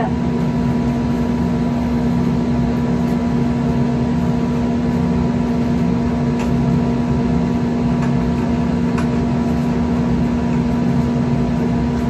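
Steady machine hum with a constant low tone, unchanging throughout, with a couple of faint soft ticks.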